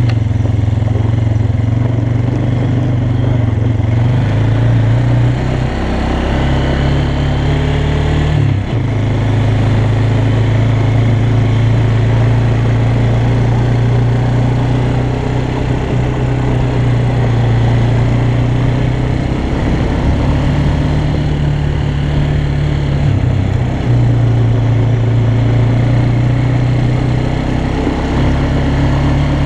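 Yamaha Bear Tracker 250 quad's single-cylinder four-stroke engine running under way on a gravel track. Its engine note steps up and down several times, with a brief break about eight and a half seconds in.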